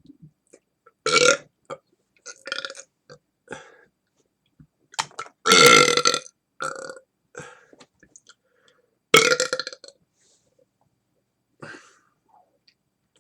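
A man belching on purpose after swallowing air: a string of separate burps with faint clicks between them. The longest and loudest comes about five seconds in and lasts about a second.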